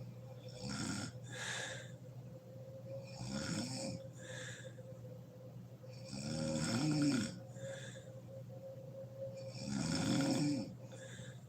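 A woman snoring in her sleep: four pitched snores about three seconds apart, each followed by a shorter, breathier sound. The third and fourth snores are the loudest. A faint steady hum runs underneath.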